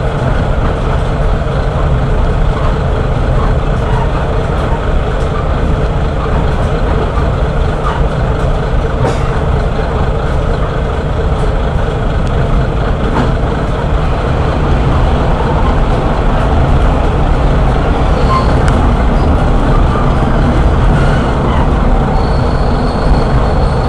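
Steady running sound heard from inside a Kashima Rinkai Railway 6000-series diesel railcar at speed: its vertical-cylinder diesel engine running with the wheels rumbling on the rails.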